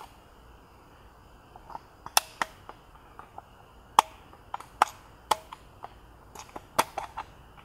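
Irregular sharp plastic clicks and snaps, about twenty of them starting about a second and a half in, as a small flat-head screwdriver pries at the clips of a Mk7 Volkswagen GTI dash vent assembly to release the fitted gauge housing.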